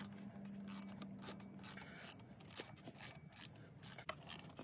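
Faint ratchet wrench clicking in a run of short raspy strokes, turning the 15 mm bolt on the serpentine belt's idler pulley to loosen it.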